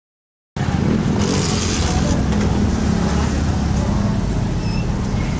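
Street traffic noise, mostly the steady low rumble of motorcycle and motorized-tricycle engines running, cutting in suddenly about half a second in after silence.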